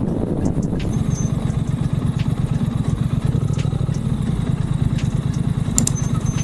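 Triumph Speed Twin's parallel-twin engine and exhaust running steadily under way, a dense, even low note.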